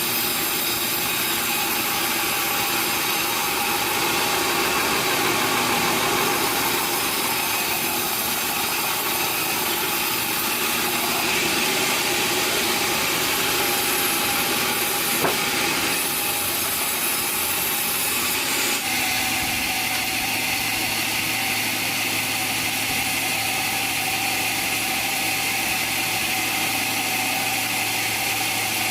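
Sawmill machinery running steadily, with its sound changing abruptly about two-thirds of the way through as a low steady hum comes in.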